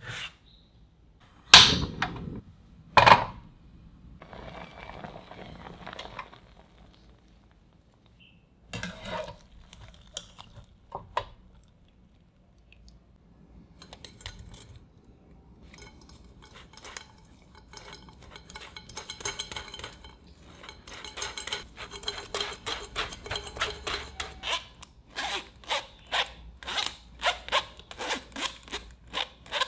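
Two sharp clanks of cookware near the start, then boiled potato being scraped and pressed through a fine wire-mesh sieve into a glass bowl, in rhythmic rasping strokes, about two or three a second, that grow louder toward the end.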